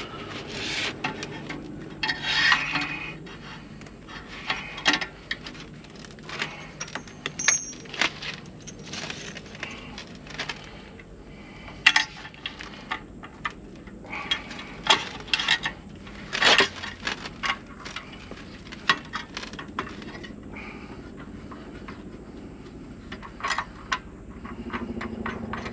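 Irregular clicks, taps and scrapes of gloved hands working a flexible conduit electrical whip and its connector into a service disconnect box, with a few sharper knocks among them.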